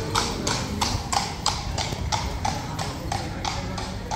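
Horse's hooves clip-clopping at a steady walk, about three even strikes a second.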